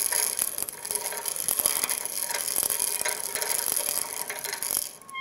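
Hand-cranked piston ring gap filer grinding the end of a piston ring: a steady fine rasping with rapid ticking that stops near the end. The ring's end gap is being filed wider so the ends will not touch as the engine heats up.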